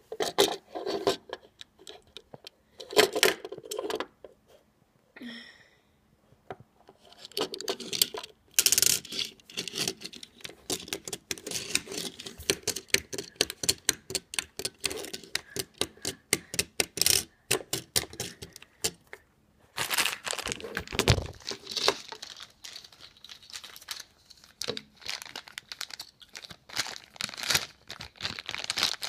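Rapid clicks, scrapes and light rattles of a die-cast toy car being handled and rolled across a wooden surface, coming in irregular bursts with a few short pauses.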